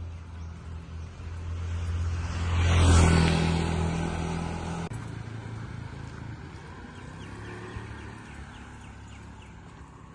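A motor vehicle passing close by on the road: its engine and tyre noise swell to a peak about three seconds in, the engine note cuts off abruptly about two seconds later, and the noise then fades away.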